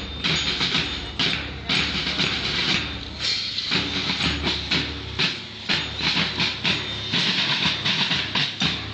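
Marching drums beating a steady rhythm of sharp, rattling strokes, a few to each second, without a break.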